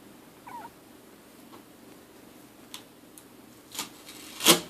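Chihuahua puppy at play: a brief high squeak about half a second in, then a few scattered clicks and knocks, the loudest a sharp knock near the end.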